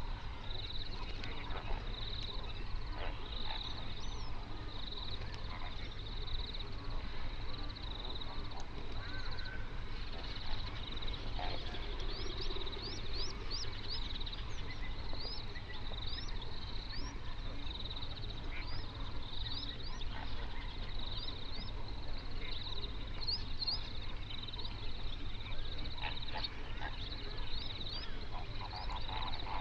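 A flock of flamingos honking across a lake in a dawn chorus. A high note pulses about once a second throughout, and many quick rising chirps of small birds come in from about the middle.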